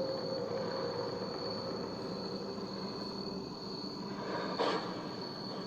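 A cricket trilling steadily on one high note over a low background hiss.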